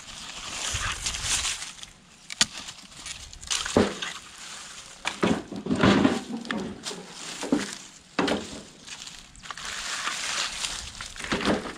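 Footsteps crunching through dry eucalyptus leaf litter and twigs, in bursts, with a few sharp cracks.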